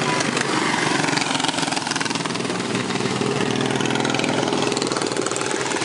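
Several racing riding-lawn-mower engines running at speed as the mowers circle a dirt track, one of them passing close.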